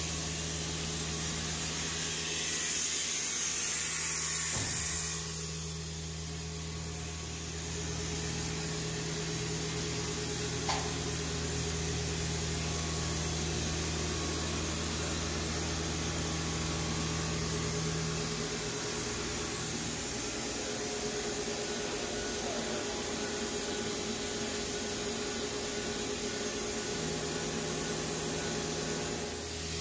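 Steady hum of shop machinery, several low drones with a fainter whine above them. The low drones drop away about eighteen seconds in, and a hissing rush is heard a few seconds in.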